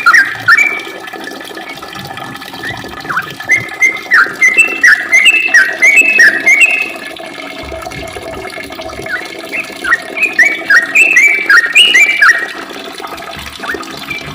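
Yellow-vented bulbul (trucukan) singing a long, rapid run of short, bubbly whistled notes. It comes in two main bursts with a brief pause between them.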